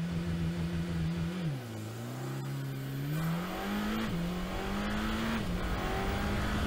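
Sports car engine accelerating through the gears. It revs up sharply, holds, and drops in pitch about a second and a half in. It then climbs twice more, falling back at each shift, and runs steady near the end.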